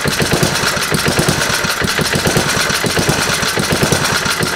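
Single-cylinder Briggs and Stratton edger engine running on propane fed through a hose into its intake in place of a carburetor, with a rapid, fairly even firing beat. The owner judges this run poor, which he puts down to the air-fuel mix.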